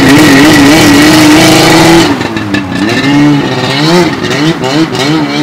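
Polaris RMK 900 snowmobile's two-stroke engine revving hard. The pitch wavers and is held high for about two seconds, then rises and falls in shorter surges as the sled pulls away.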